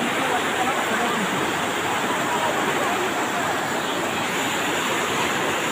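Steady rushing of fast-flowing floodwater.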